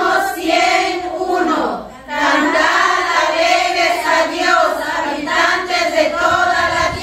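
Women's choir singing in rising and falling phrases, with no instruments, with a brief break about two seconds in.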